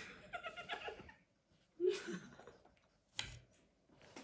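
Soft giggling in two short spurts, with a single sharp click a little past three seconds in.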